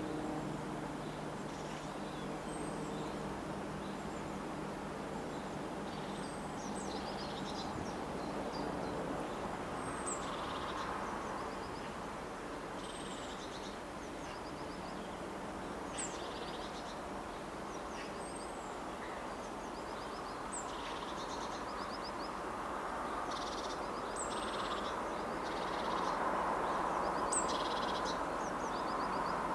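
British Rail Class 14 diesel-hydraulic locomotive D9555 running slowly at a distance, its engine a steady hum that grows louder near the end as it draws closer. Birds call with short high chirps every couple of seconds over it.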